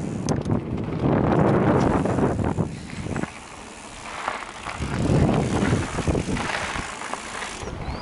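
Mountain bike riding fast down a dirt trail: wind buffeting the microphone over the rolling of knobby tyres on dirt and gravel, with scattered clicks and rattles from the bike. The noise drops for a second or two just before the middle, then builds again.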